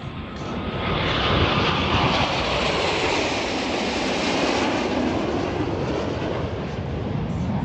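Jet aircraft flying past low, its engine noise swelling about a second in, the pitch sliding down as it passes, then a steady rush.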